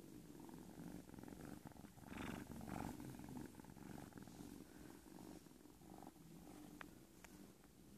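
Siamese cat purring close up, a soft continuous low rumble that swells briefly about two seconds in. A couple of faint clicks come near the end.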